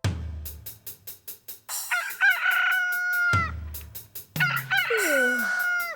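Rooster crowing twice over a drum beat with quick hi-hat ticks.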